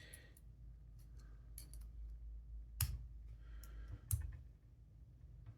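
Small metal clicks and light scraping of a tool working the circlip off a lock cylinder, spreading the clip, with two sharper clicks a little before 3 s and about 4 s in.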